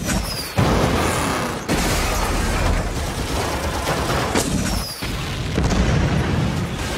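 Film action-scene sound effects: a run of explosions and booms over continuous loud noise. Sudden loud hits come about half a second in, near two seconds and again near six seconds.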